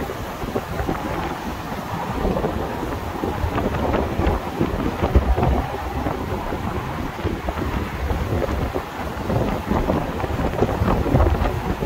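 Wind buffeting the microphone in uneven gusts, a low rumble that rises and falls, over the noise of heavy road traffic.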